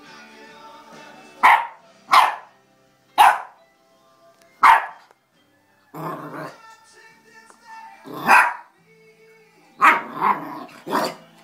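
Puppy barking: about eight short, sharp barks, spaced irregularly, with three close together near the end.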